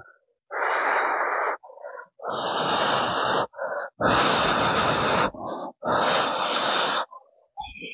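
A person breathing hard and forcefully: four long, hissing exhalations about two seconds apart, with short, quick intakes of breath between them.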